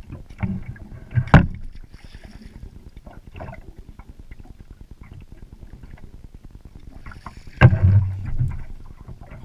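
A gaff and a hooked fish knocking against the side of a small fishing boat as the fish is gaffed and hauled aboard: two loud knocks about six seconds apart, the second followed by about a second of heavy thumping. Low steady wind-and-water noise fills the gaps between them.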